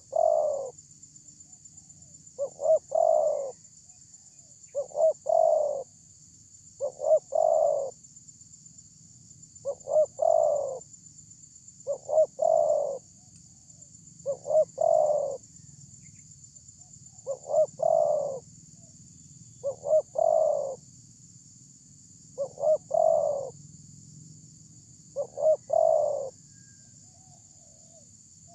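Spotted dove cooing over and over: about eleven phrases, one every two to three seconds, each two short notes and then a longer coo that falls in pitch. A faint steady high-pitched hiss runs behind it.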